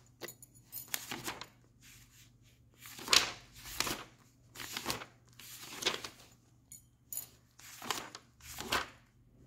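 Paper pages of a softcover workbook being turned one after another: a string of short papery swishes, roughly one a second.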